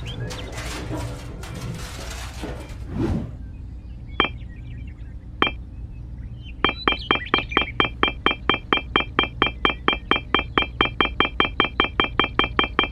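A rapid, even series of sharp ringing taps, about four a second, each with a clear high ring. Before them come two single taps, and before those a rustling, scraping noise.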